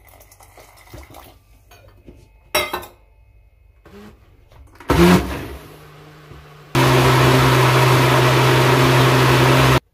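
Electric mixer grinder wet-grinding coconut chutney paste. Light knocks from the lid and jar are followed by a short burst of the motor about five seconds in, which winds down. From about seven seconds the motor runs steadily at full speed with a loud whirr and then cuts off suddenly.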